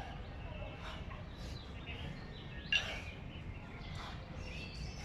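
A pair of 20 kg competition kettlebells knocking together once, with a short metallic ring, about two and a half seconds in, on one rep of a steady jerk set. Faint hall murmur behind.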